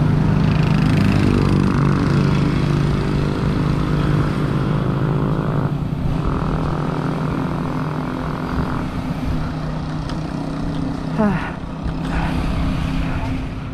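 A motor vehicle's engine running close by, its pitch shifting slightly, over steady road and riding noise.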